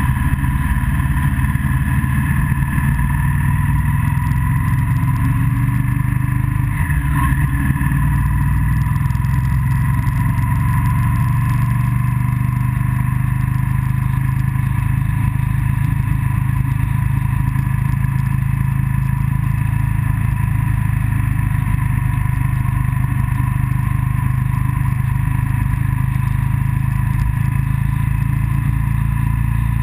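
Onboard sound of a motor vehicle travelling steadily along a road: the engine running at an even pitch under road and wind noise, with a brief change in pitch about seven seconds in.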